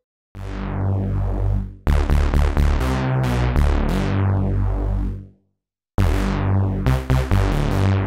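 Access Virus TI2 Desktop virtual analogue synthesizer playing a melodic jam in short phrases, on a patch with a heavy low end. Each note starts bright and quickly turns darker. The playing breaks off for a moment a little after five seconds in, then starts again.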